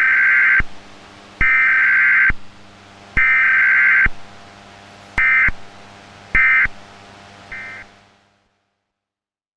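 Emergency Alert System SAME digital data bursts, buzzy two-tone warbles: three long bursts about a second each, then three short ones. The short triple is the end-of-message code that closes an alert.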